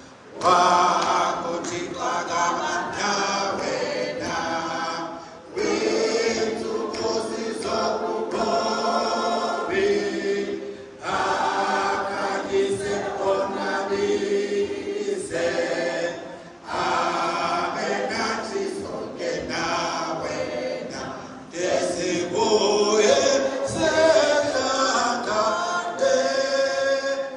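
A large congregation of women singing a hymn unaccompanied, in phrases of about five seconds with short breaks for breath between them.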